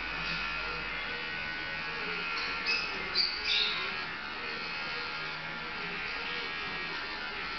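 Electric dog-grooming clippers buzzing steadily as they are run through a dog's curly coat. A few short high-pitched sounds come close together about three seconds in.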